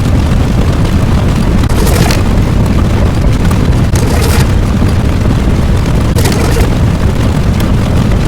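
Loud, continuous rumbling boom sound effect like a long explosion, with a short crackling hiss on top about every two seconds.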